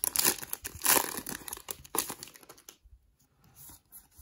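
Foil wrapper of a Pokémon trading card booster pack crinkling and tearing as it is opened by hand. The crackling is busy for the first two and a half seconds or so, then thins to faint rustles.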